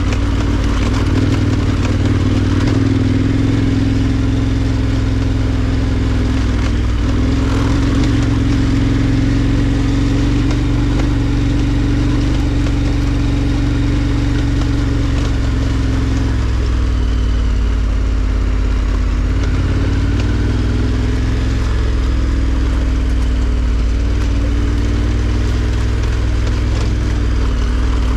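KTM 1290 Super Adventure R's V-twin engine running at low, steady revs as the bike rides up a rough dirt track, the revs dipping and picking up a few times past the middle.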